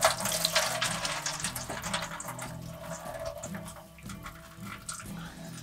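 Rice being tipped into a pot of boiling water: a sudden splashing rush with small patters that fades away over about three seconds.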